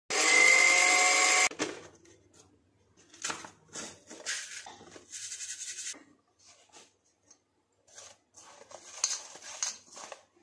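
Electric chopper-grinder motor running with a high whine for about a second and a half, grinding dried garlic to powder, then cutting off sharply. After it come soft, scattered scraping and rustling as the garlic powder is handled in a steel bowl.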